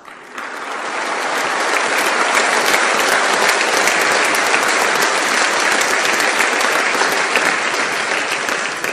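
Large audience applauding: dense, steady clapping that builds over the first second and begins to fade near the end.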